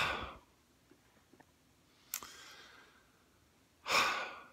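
A man's breaths: one at the start and another near the end, each lasting about half a second, with a short faint breath about two seconds in.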